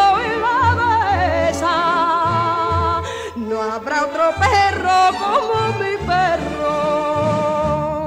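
A woman singing a long wordless melisma with wide, heavy vibrato in an old Spanish copla, over an orchestral accompaniment with a regular bass beat.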